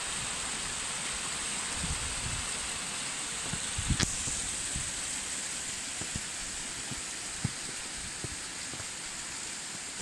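A small spring-fed waterfall and stream trickling and splashing over rocks in a steady hiss, with a few faint knocks, the clearest about four seconds in.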